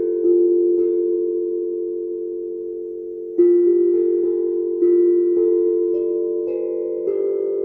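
CROBA 12-inch, 13-note steel tongue drum tuned to C, played slowly by hand. A note struck near the start rings on for about three seconds, then several more notes follow roughly a second apart, each ringing into the next.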